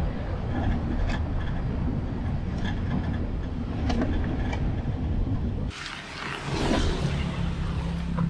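Car driving on a gravel road, heard from inside: a steady low rumble of engine and tyres with a few sharp knocks. About two-thirds of the way through it cuts off abruptly to a quieter, different background.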